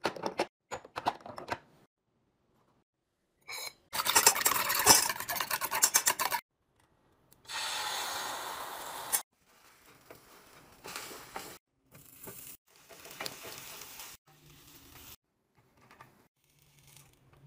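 A run of kitchen sounds. First, glass spice jars and their lids clink. Next comes a burst of rapid clattering, then beaten egg hissing as it is poured into a hot nonstick pan, and finally soft scraping as the eggs are stirred in the pan.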